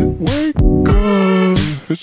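Background music with a steady beat and a bass line, sharp bright hits recurring about every half second.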